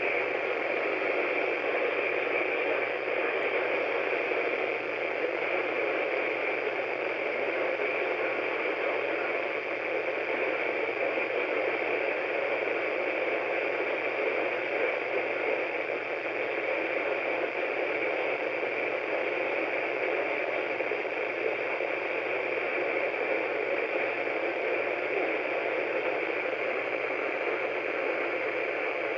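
Steady hiss of static from a radio receiver tuned to a weak, noisy signal, with no program audio coming through.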